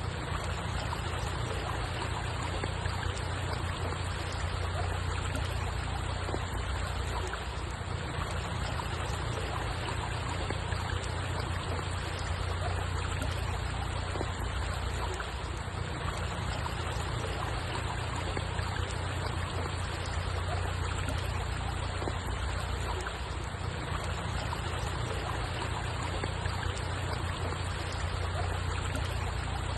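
Steady trickling, flowing water with a constant low rumble underneath and no breaks or changes.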